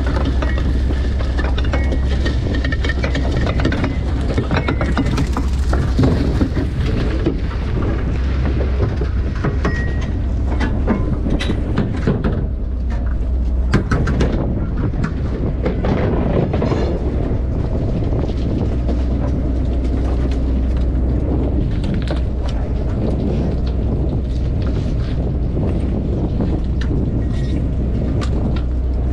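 Fishing boat's engine running with a steady low drone, with scattered knocks and rattles from the trawl net and gear being handled on deck.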